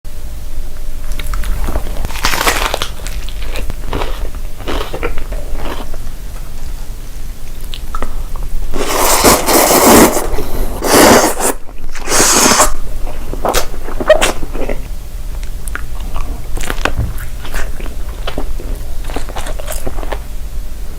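Close-up eating sounds: food being bitten, crunched and chewed, with a run of small crunches and a few louder crunching bites about nine to thirteen seconds in.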